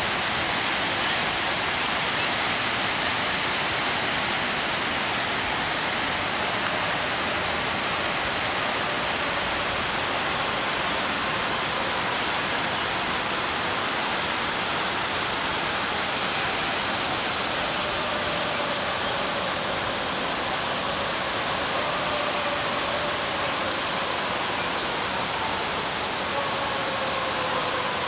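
Steady rush of falling water from a large park fountain. A faint tone slowly falls in pitch through the second half.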